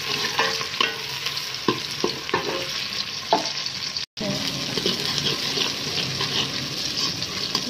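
Sliced onions sizzling as they brown in hot ghee in a large metal pot, stirred continuously with a metal ladle that clicks and scrapes against the pot now and then. The sound cuts out for an instant a little after halfway.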